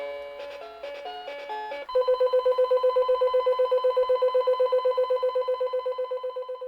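Seiko Musica QM701P melody alarm clock playing the closing notes of an electronic chip melody, then, about two seconds in, switching to a single rapidly pulsing beep tone, about nine pulses a second.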